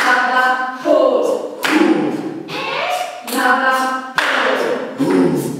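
A group of young people singing or chanting short phrases together in unison, each phrase starting with a sharp hit, about one every second.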